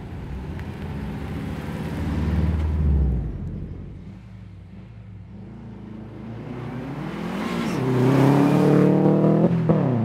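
Subaru Impreza wagon rally car's flat-four engine: a low rumble swells over the first three seconds and dies away, then the engine accelerates hard with its pitch rising steadily. Just before the end a quick upshift drops the pitch, and it pulls again.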